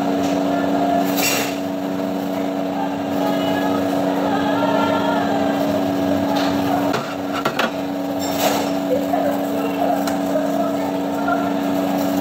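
Steady mechanical hum of kitchen equipment, with a few short knocks of a knife against a wooden chopping block while chicken breast is sliced.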